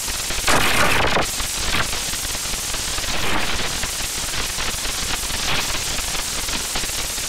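Harsh, dense crackling noise from a heavily distorted, effects-processed soundtrack, like loud static, a little louder from about half a second to a second in.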